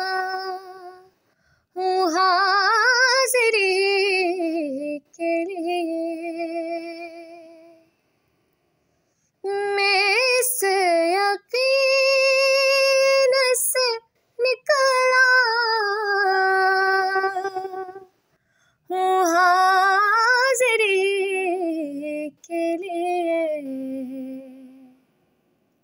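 A woman singing an Urdu naat, a devotional hymn in praise of the Prophet, with no instruments. She sings in several phrases of long held notes with vibrato, broken by short silences.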